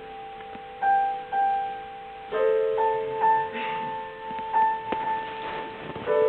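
Piano playing slow, sparse notes and chords, each struck and left to ring; a fuller chord comes in about two and a half seconds in and another near the end.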